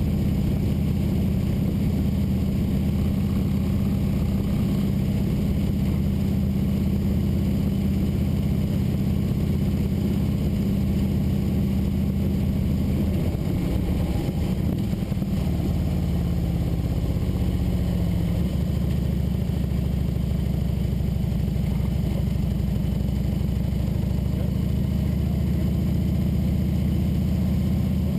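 Vehicle engine running steadily while driving, heard from a camera mounted on the vehicle. Its note shifts in the middle as the revs change, then settles again.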